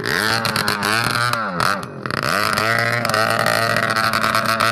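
Motorcycle engine being revved, its pitch rising and falling over and over, about once a second.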